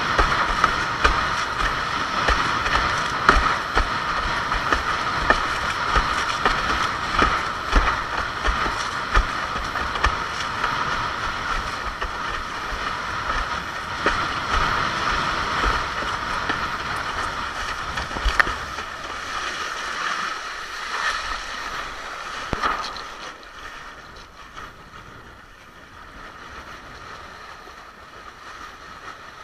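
Water rushing and slapping against a windsurf board sailing fast through chop, with wind buffeting the camera microphone in low thumps. The rush eases and grows quieter over the last six seconds or so.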